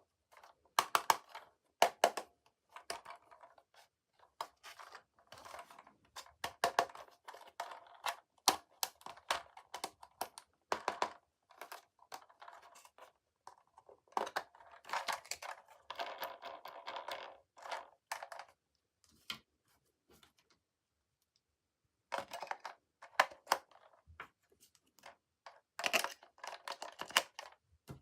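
Toys and their packaging being handled: irregular sharp clicks and taps mixed with short stretches of rustling and scraping, stopping for a couple of seconds past the middle.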